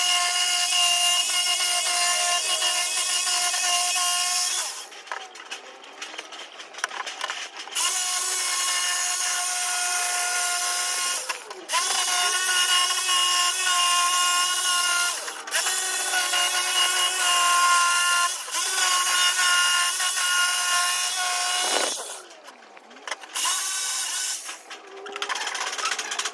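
A handheld power tool's motor whining steadily in bursts of a few seconds, switched off and on again about six times, the pitch sagging briefly each time it stops and picks up.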